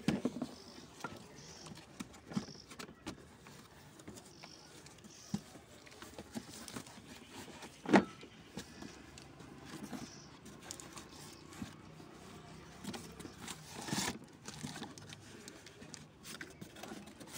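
Corrugated cardboard rustling, scraping and flapping as a boxed mop is slid out of its shipping carton and the carton is handled, with a sharp knock about eight seconds in and a smaller thump about fourteen seconds in.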